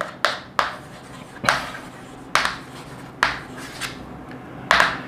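Chalk writing on a blackboard: a series of short, sharp chalk strokes and taps at an irregular pace, about eight in five seconds, the loudest one near the end.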